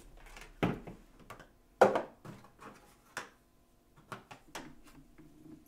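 A string of short clicks and knocks from hard objects being handled and set down while other pocket knives are gathered, the loudest knock a little under two seconds in.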